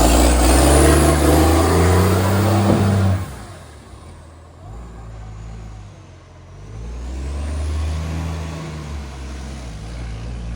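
Garbage truck diesel engine running loudly through a leaking exhaust pipe, dropping off suddenly about three seconds in, then building up again and easing off near the end.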